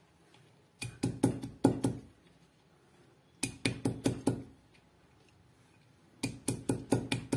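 Stainless-steel pounder knocking on a round stone slab as cut green chillies are lightly crushed: three quick runs of five or six strikes each, a second or two apart.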